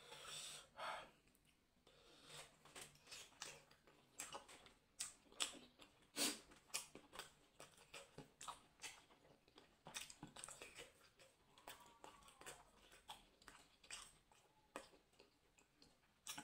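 A person chewing meat close to the microphone: faint, irregular wet smacks and clicks of the mouth.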